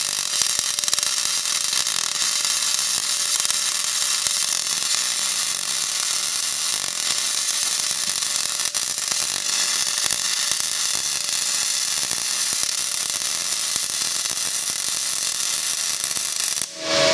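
MIG welding arc from an HTP Pro Pulse 300 laying a bead on cast iron: a steady crackling hiss with a buzz. It cuts off shortly before the end as the arc is stopped.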